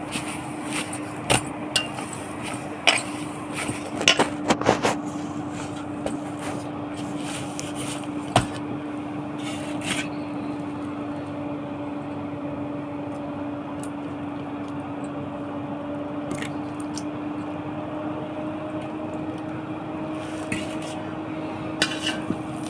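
Rice-flour dough kneaded by hand in a steel bowl: scattered knocks and taps against the bowl, most of them in the first ten seconds and a few near the end. A steady low hum sounds underneath throughout.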